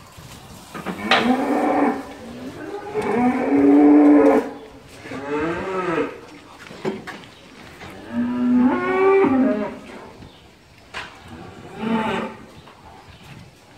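A cow mooing over and over, about five separate calls of a second or so each, the loudest in the middle.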